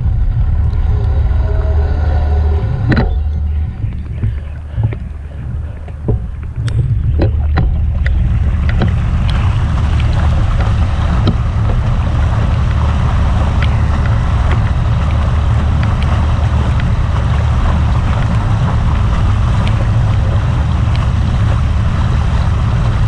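Bicycle wheels pushing through flood water: a few scattered clicks and splashes, then from about eight seconds in a dense, steady swishing and splashing of water, over a constant low rumble.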